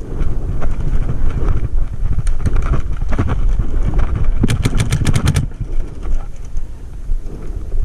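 Paintball marker firing a rapid burst of about ten shots in under a second, a little past the middle, with a few single shots before it, over heavy wind rumble on the microphone.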